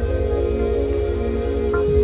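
Ambient background music: steady held tones over a low, pulsing drone.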